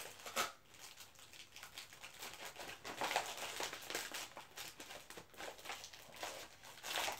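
Brown paper mailer envelope being crinkled and torn open by hand: irregular crackly rustling, a little louder about three seconds in and again near the end.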